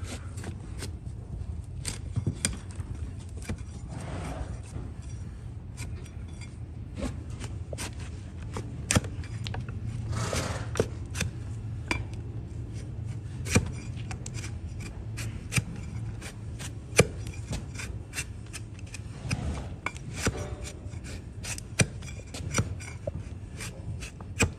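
A large flat hoof-paring blade shaving the sole of a donkey's hoof: a run of sharp crisp cuts and scrapes as thin slices of horn come away, with a few longer scraping strokes. A steady low hum sits underneath.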